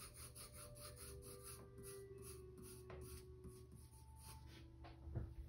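Faint scratching of a colored pencil drawing light strokes on paper, about three strokes a second, thinning out after about three and a half seconds. A soft bump near the end.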